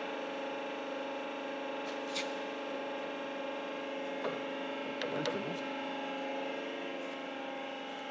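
Ragache CP 70 section bender running with a steady electric motor hum, and a few light clicks and knocks as its roll clamps and levers are handled.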